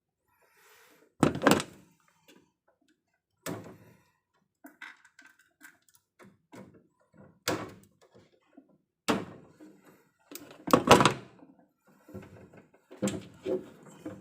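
A series of sharp knocks and thunks, about five loud ones spread irregularly, with lighter clicks and rustling between them.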